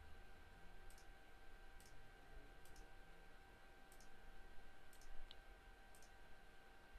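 Near silence: faint room tone with a thin steady whine and soft, high ticks roughly once a second.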